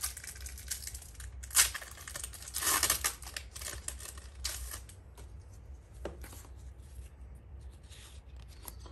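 A foil Pokémon booster pack wrapper being torn open and crinkled: a sharp snap about a second and a half in, then a longer tearing rasp just before the three-second mark, followed by softer rustling and clicks as the cards are handled.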